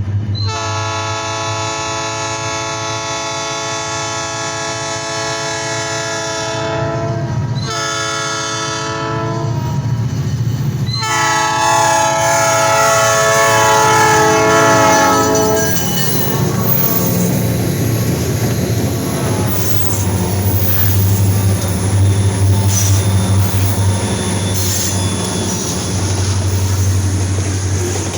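EMD GP40-series diesel locomotive's horn sounding three blasts, long, short, long, over the first half. The train then passes with a low diesel rumble and the clatter and light squeal of wheels on rail.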